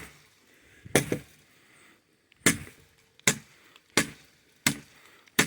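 Honshu Tactical wakizashi blade chopping into a tree's wood: six sharp, separate strikes, roughly one a second, each dying away quickly.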